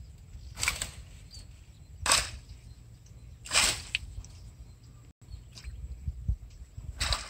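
A long stick swung hard through dense leafy plants, beating them down: four sharp swishing strikes, the first three about a second and a half apart, with fainter rustling in between over a low rumble.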